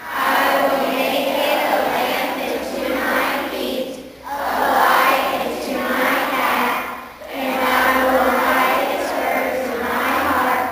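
Many voices, children's among them, speaking together in unison in long phrases, with short pauses about four and seven seconds in: a group reciting a pledge to the Bible with hands on hearts.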